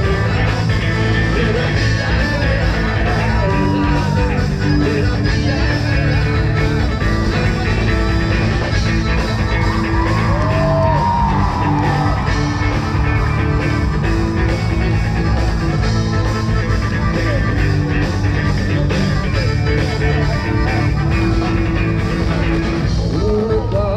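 Loud live band music, rock-style, playing through an outdoor concert stage's PA system and heard from within the crowd.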